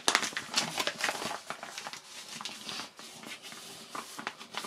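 Pages of a paper instruction manual being flipped and handled, a quick run of papery rustles and flicks, loudest in the first second or so.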